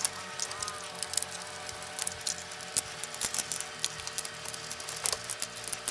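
Hard plastic parts of a large transforming robot figure clicking and knocking irregularly as they are handled and worked into position.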